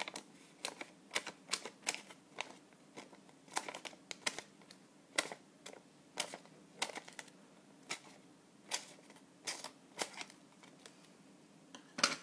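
Small scissors snipping bits of paper or cardstock: a string of short snips, two or three a second and unevenly spaced, with the loudest near the end.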